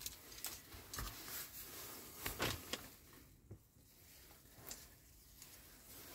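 Faint handling sounds of small plastic model-kit parts being picked up and turned in the fingers: light clicks and soft rustles, mostly in the first three seconds.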